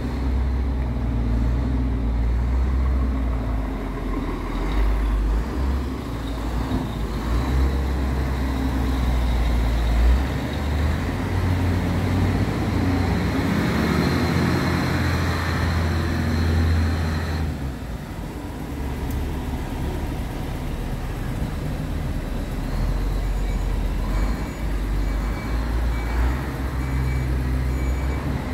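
Diesel engine of a Scania P truck running at idle: a steady low rumble. A faint, repeated high beeping joins in near the end.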